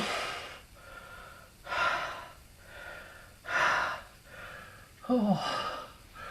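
A man breathing hard, heavy gasping breaths about every two seconds, with a short falling groan about five seconds in: out of breath from the effort of hammering out a riveted ball joint.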